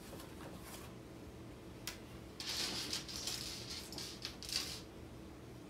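A single click, then about two seconds of uneven crinkling and rustling of thin plastic being handled, loudest near the end.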